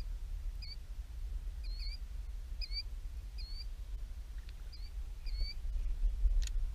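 Short high chirps from a small animal, each with a quick upward flick at its end, repeated roughly once a second over a low wind rumble on the microphone. There is a brief knock about six seconds in.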